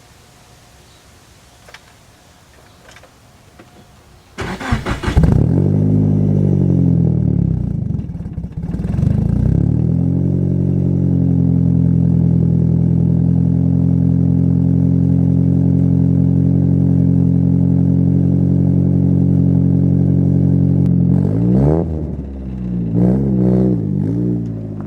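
A car engine is started about four seconds in with a loud catch. It flares up on the start, then falls back to a steady idle. Near the end it is revved briefly a few times. This is the exhaust note of the car's current one-piece, welded cat-back exhaust.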